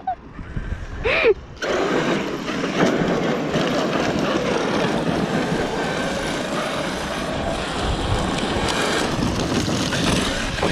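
Electric RC off-road trucks running hard on loose dirt and gravel: the brushless motors whine and the tyres churn stones, a steady rush that sets in about two seconds in.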